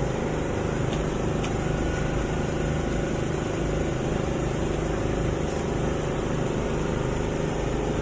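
Steady drone of a running motor, with a constant low hum and no change in pitch.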